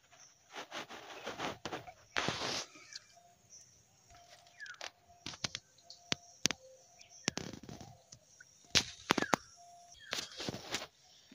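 Fish splashing at the pond's surface as they take feed thrown in for them, several short splashes a few seconds apart. Birds call faintly in the background with short repeated notes.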